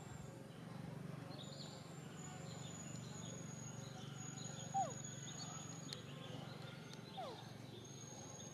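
Outdoor tropical woodland ambience: a steady high thin whine, faint scattered bird chirps, and two brief falling animal calls about two and a half seconds apart.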